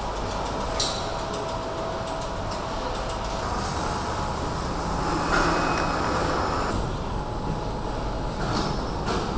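Steady machinery rumble and hum of a car assembly hall, with scattered clicks and knocks and a louder rushing noise about five seconds in.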